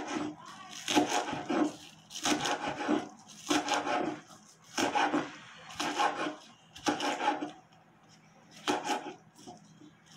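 Serrated knife slicing green onions on a wooden cutting board: a rasping stroke about once a second, with a longer pause about seven and a half seconds in.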